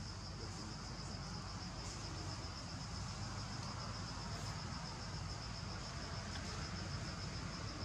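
An insect trilling steadily in one high, evenly pulsed note, over a low steady rumble.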